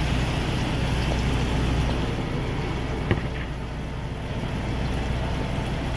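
Truck's engine idling, a steady low hum under a hiss, with one short click about three seconds in.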